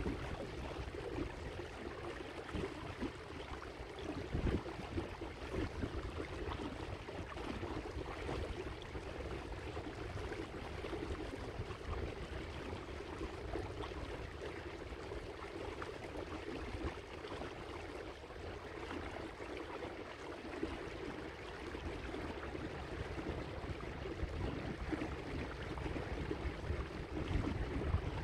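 Water washing and lapping along the hull of a small boat under way, with a low, fluttering rumble of wind on the microphone.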